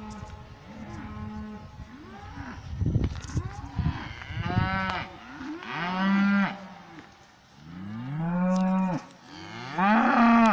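A herd of cattle mooing, several long moos one after another from different cows, some rising in pitch.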